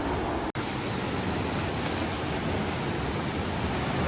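Steady rush of breaking ocean surf and white water, which cuts out for an instant about half a second in.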